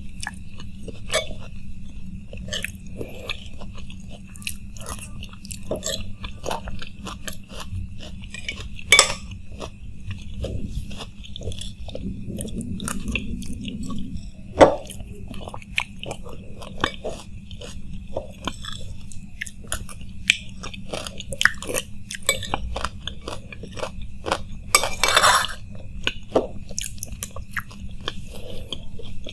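Close-miked chewing and wet mouth sounds of a man eating spoonfuls of street food, with a metal spoon clicking and scraping against a ceramic plate. There are many short clicks, with sharp clinks about 9 and 15 seconds in, and a longer noisy burst about 25 seconds in.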